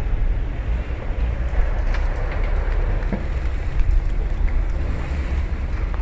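Wind buffeting the microphone outdoors, a steady low rumble.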